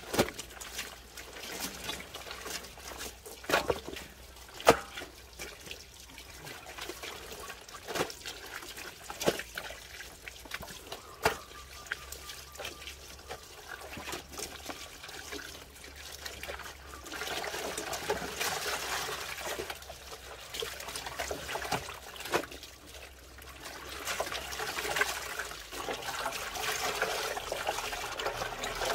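Water trickling and splashing, with scattered sharp knocks or splashes and louder stretches of splashing about two-thirds of the way in and near the end.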